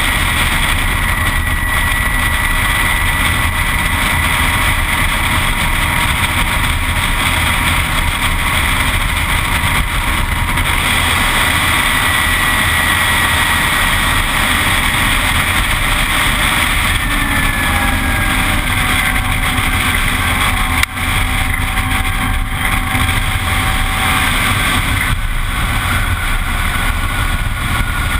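Heavy wind rush over an onboard camera on a Zero S ZF9 electric motorcycle at racing speed, with the thin whine of its electric motor slowly drifting lower in pitch. The noise dips briefly about two-thirds of the way through.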